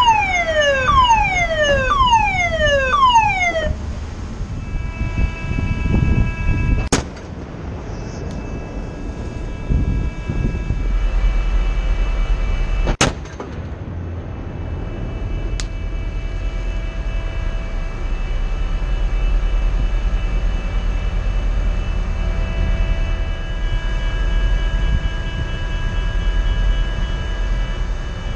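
A 57 mm naval gun, the US Navy's Mk 110, on a Littoral Combat Ship fires two single rounds about six seconds apart, each a sharp bang, followed by a fainter crack a couple of seconds after the second. Before the first shot a warning alarm sounds a repeating falling tone for a few seconds. A steady machinery whine and a low rumble carry on underneath.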